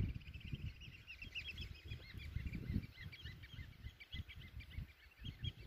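A flock of birds calling, with many short, rapidly repeated calls overlapping. A low rumble sits underneath.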